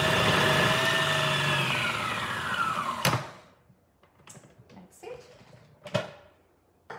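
Magimix Cook Expert food processor running with a steady whine as its 2 mm slicing disc cuts carrots and celery, then slowing, dropping in pitch and stopping with a clunk about three seconds in. A few light knocks and clicks follow.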